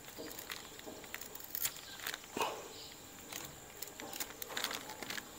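Knife cutting through the stem of a green horn plantain to part it from the bunch: faint, scattered crackles and snicks of the blade in the fibrous stalk.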